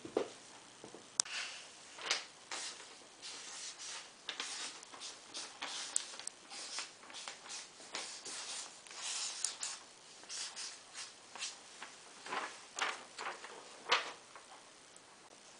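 Felt-tip marker scratching across paper in short, irregular strokes, several a second. A few louder strokes of paper handling come near the end.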